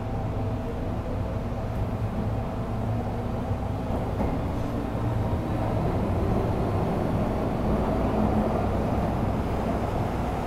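Interior of an MTR M-Train (Metro-Cammell electric multiple unit): a steady low hum of the train's equipment, swelling into louder running noise from about halfway in as the train gets under way.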